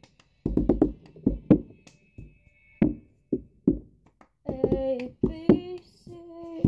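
Cup-song routine: rhythmic hand claps with a plastic cup tapped, lifted and knocked back down onto a book on the table. About four and a half seconds in, a girl's voice starts singing along.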